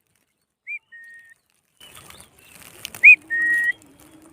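Indian ringneck parrot whistling two-note phrases: a short arched note followed by a longer flat whistle, given twice, faint first and much louder about three seconds in.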